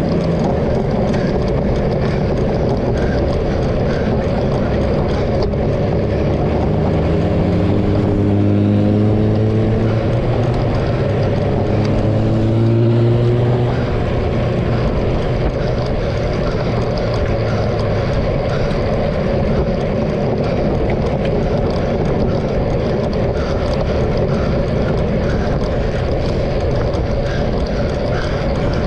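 A motor vehicle's engine running with steady wind and road noise. Its pitch climbs about a third of the way in, drops back around the middle, then holds steady.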